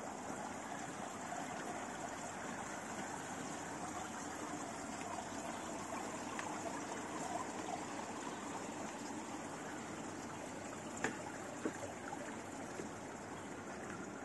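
Swimming pool water trickling steadily, with two short knocks late on.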